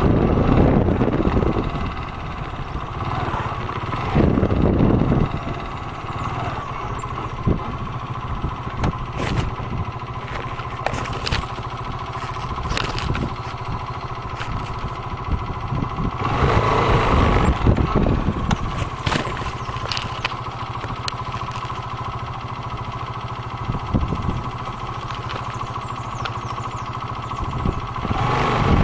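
Motorcycle engine running at low speed while the bike rolls over loose wooden bridge planks, with scattered knocks and clatter from the boards under the tyres and a few louder stretches of rumble.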